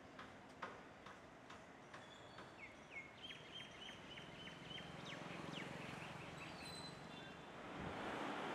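Faint outdoor ambience with a small bird chirping a quick run of short high notes, about six a second, a few seconds in, over scattered light clicks. A steady hiss comes up near the end.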